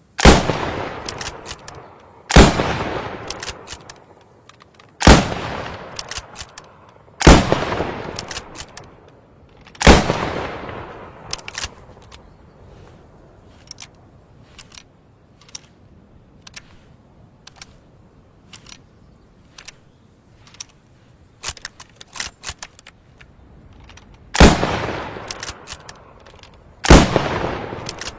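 Lebel Mle 1886 M93 bolt-action rifle firing single shots, each a sharp crack with an echoing tail, five in a row about two and a half seconds apart, with small metallic clicks of the bolt between them. A long run of metallic clicks and rattles follows. Two more shots come near the end.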